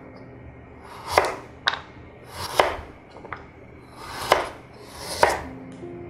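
Santoku knife slicing a raw carrot into rounds on a bamboo cutting board: about five separate cuts, roughly one a second, each ending in a sharp knock of the blade on the board.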